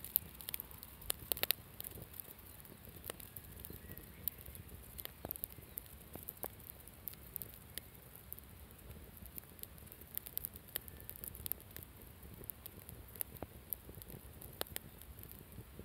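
Wood campfire crackling, with frequent irregular sharp pops and a cluster of louder pops about a second in, over a steady low rumble.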